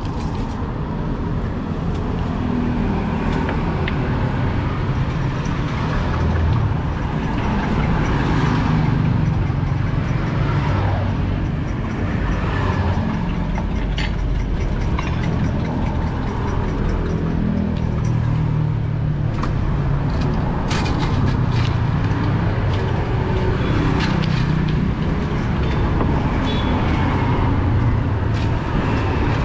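Road traffic on a busy street: a steady rumble of engines, with vehicles swelling and fading as they pass.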